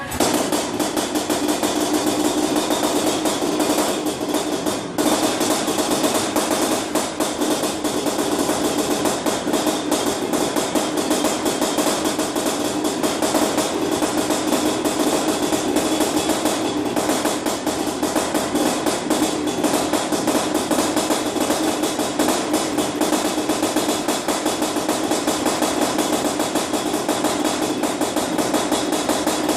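Honda CR500 two-stroke single-cylinder engine running on its first start after a rebuild, with a brief dip about five seconds in.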